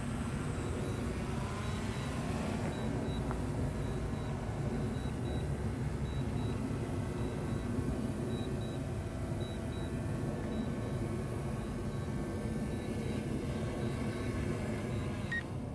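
DJI Mavic Air 2 quadcopter's propellers whirring steadily as it descends to land on return-to-home. The sound drops off near the end as it settles onto the pad.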